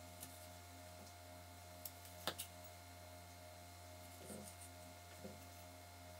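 A few faint knife strokes slicing through a raw carrot onto a wooden cutting board, the sharpest tap about two seconds in and two softer ones later, over a steady low hum.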